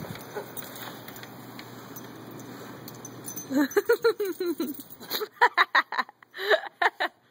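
Wind rushing over the microphone, then, about three and a half seconds in, a husky's wavering, rising-and-falling vocalization. A quick run of short, loud voiced yelps follows, about five or six a second.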